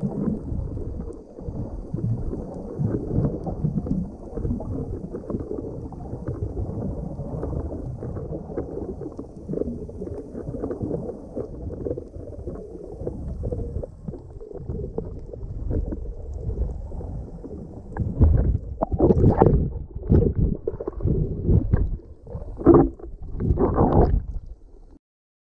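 Muffled underwater rumble and gurgling of water moving around a camera carried through the sea while snorkeling. In the last several seconds it is broken by a handful of louder splashy surges, then cuts off suddenly near the end.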